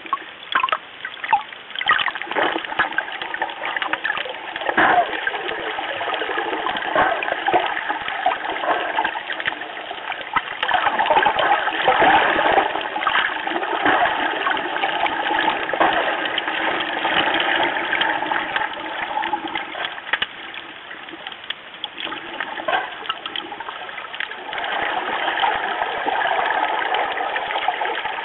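Rushing and bubbling water heard through an underwater camera housing, steady throughout with many scattered clicks and knocks.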